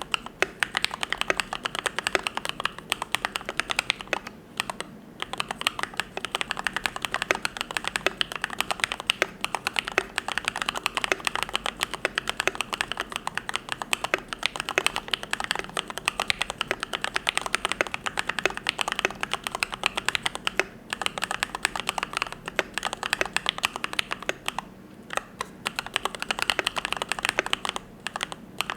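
Fast typing on a YMD75 V3 custom mechanical keyboard with lubed Gateron Yellow linear switches: a dense, steady stream of keystrokes, broken by a few short pauses.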